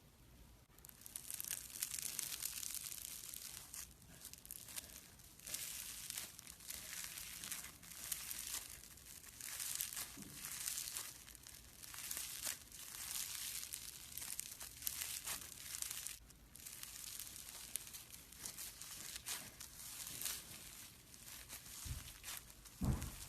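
Slime being squeezed and stretched by hand, giving crackly, crinkling noises in repeated bursts every second or two.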